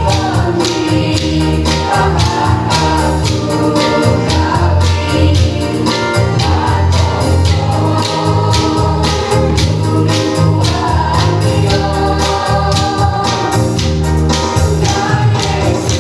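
Gospel worship song with voices singing the melody over a band with a steady beat and heavy bass.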